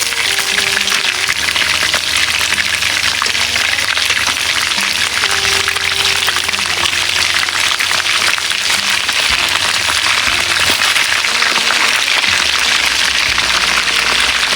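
Chicken thighs deep-frying in hot oil: a steady, loud sizzle and crackle.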